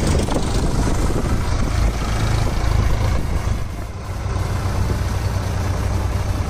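Sonalika DI-47 RX tractor's diesel engine running with a steady low note, hauling a fully loaded trolley.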